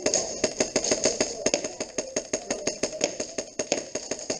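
Airsoft guns firing a fast, steady string of sharp cracks, about seven shots a second.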